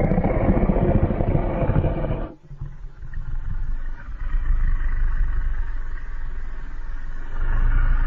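Custom-made monster roar sound effects: a loud, deep roar that cuts off about two seconds in, followed by a quieter rumbling roar that swells again near the end.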